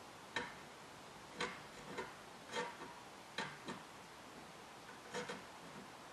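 Irregular light clicks and taps, about seven of them, as hand tools and wire are worked inside a radio's metal chassis.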